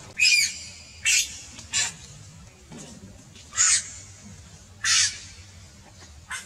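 Baby macaque screaming: about six short, shrill cries a second or so apart.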